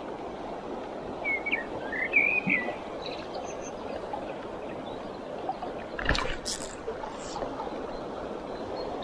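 Steady rush of a shallow river running over stones, with a few short bird chirps in the first seconds and a couple of sharp knocks about six seconds in.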